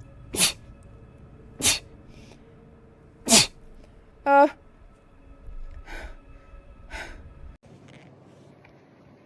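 A person's rapid sneezing fit: three sharp sneezes about a second or more apart, then a short high-pitched voiced sound, then two softer sneezes.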